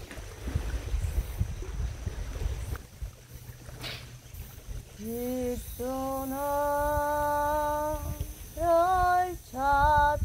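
Low rumble of wind on the microphone, then from about five seconds in a woman humming a slow tune in long held notes, followed by a few shorter notes.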